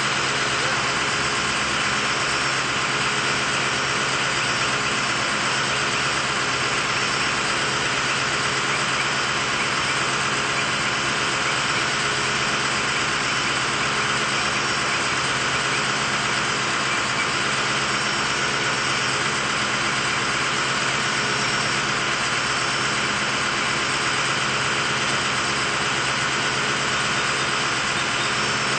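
A bucket truck's engine running steadily at idle, an unbroken drone with no revving or changes.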